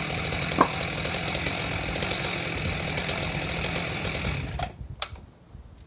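Husqvarna Rancher 61 two-stroke chainsaw running steadily, then cutting off suddenly about four and a half seconds in. A couple of sharp knocks follow.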